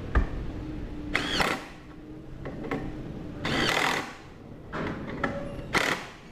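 Socket wrench turning bolts on a twin brake-caliper bracket in three short bursts of mechanical working noise.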